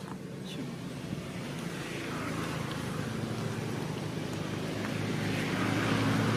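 A motor vehicle's engine running steadily, growing louder as it draws nearer.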